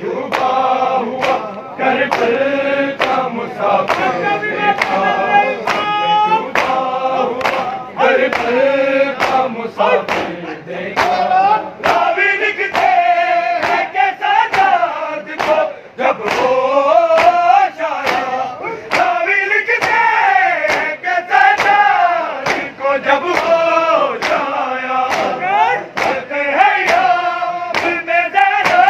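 A crowd of men chanting a noha, a Shia lament, in unison, kept in time by a steady rhythm of sharp slaps of hands on bare chests (matam).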